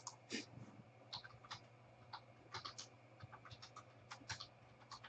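Faint computer keyboard typing: irregular, quick keystroke clicks.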